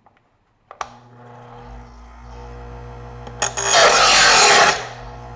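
Presto EverSharp electric knife sharpener switched on with a click about a second in, its motor then humming steadily. From about three and a half seconds a knife blade is drawn through the first, coarse grinding stage: a loud grinding rasp for about a second and a half, after which the motor hums on alone.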